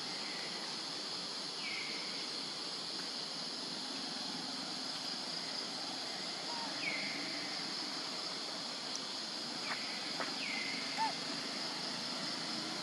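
Steady high-pitched insect drone, with a short falling chirp repeating every few seconds and a couple of faint clicks.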